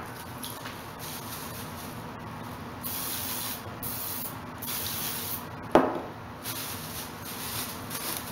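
Cooking-oil spray bottle hissing in several short sprays as oil is misted onto a plastic bowl cover to grease it. There is one sharp knock a little before six seconds in.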